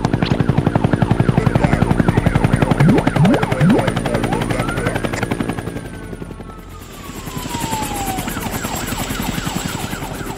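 Cartoon helicopter rotor sound effect: a rapid, steady chop that fades out about six seconds in. A whistling tone slides up and then down over it.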